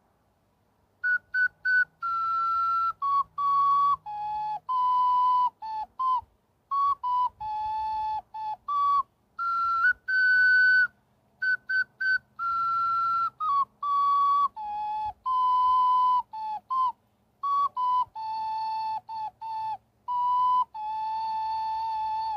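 A small painted ocarina playing a melody of clear, whistle-like single notes in phrases with short breaks, starting about a second in.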